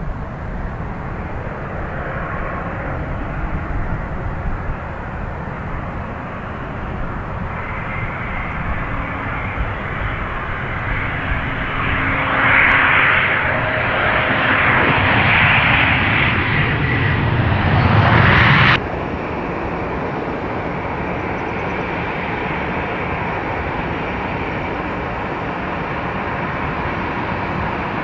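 Sukhoi Superjet 100 landing, the steady noise of its twin SaM146 turbofans growing louder as it comes down the runway close by. The sound cuts off abruptly about two-thirds of the way in, leaving a steady, quieter hiss.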